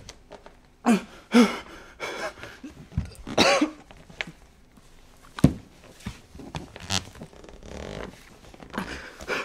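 A man groaning and grunting in short bursts, about a second in and again about three and a half seconds in, with a couple of sharp knocks in between.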